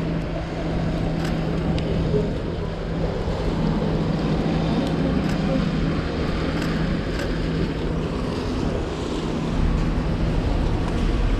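Rainy town-street ambience: a steady hiss of traffic and tyres on wet roads under a steady low engine hum, with a few faint ticks. Wind starts buffeting the microphone near the end.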